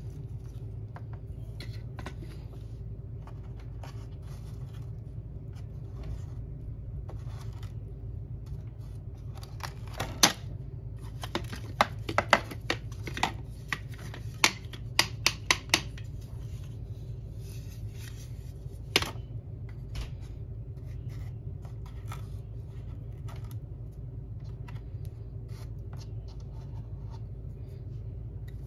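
Hands handling the plastic base and parts of a Hoover upright vacuum cleaner: scattered clicks and light scrapes, with a quick run of sharp plastic clicks and knocks about ten to sixteen seconds in, over a steady low hum.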